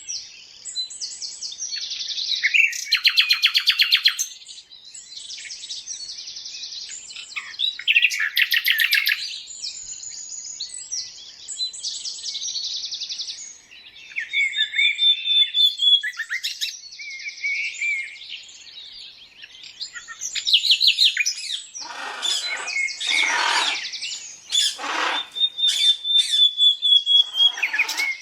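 Songbirds singing and chirping in a steady chorus of overlapping high-pitched phrases, rapid trills and long, thin whistled notes. Near the end, a few coarser calls reach lower in pitch.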